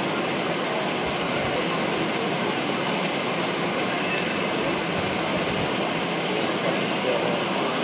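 Steady murmur of a crowd of spectators, with indistinct chatter.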